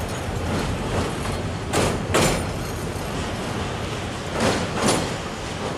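Passenger train rolling over a railway bridge: a steady rumble from the coaches, with two pairs of sharp wheel clacks over rail joints, the pairs about two and a half seconds apart.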